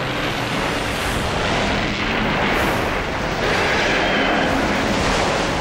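Steady, dense rumbling from the sound-effects track of a tokusatsu sea-monster attack on a ship, a wash of noise like crashing water and blasts with no clear separate hits.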